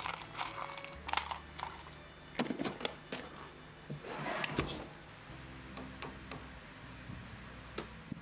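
Small metal hardware (screws, bolts, washers) clinking and rattling in a plastic tub as it is rummaged through, in a string of irregular clicks, with a longer scraping rustle about halfway through.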